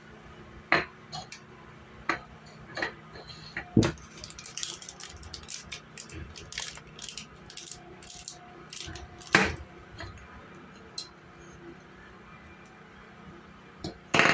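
Plastic spice bottles being handled: scattered clicks, taps and knocks, with a quick run of lighter clicks in the middle and a few sharper knocks.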